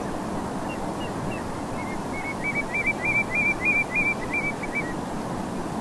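Eurasian oystercatcher piping: a quick run of short, high piping notes, about four a second, starting about two seconds in and fading out near the five-second mark, with a few faint notes before it. Distant North Sea surf makes a steady hiss underneath.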